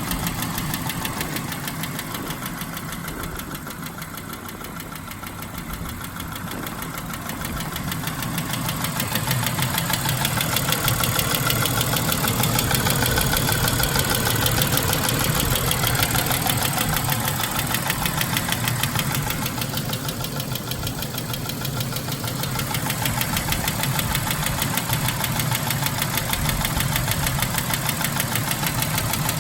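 2007 Buick Lucerne's 3.8-litre V6 running with a rapid, even ticking knock that gets louder about a third of the way in. A mechanic took it for a failed lifter; the owner suspects the engine was overfilled with oil at its last oil change.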